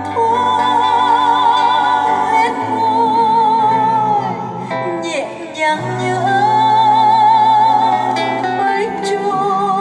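A woman singing a slow ballad, holding long notes with a wide vibrato over a soft instrumental backing. It is played back from CD through a 6P3C tube amplifier and RFT full-range speakers.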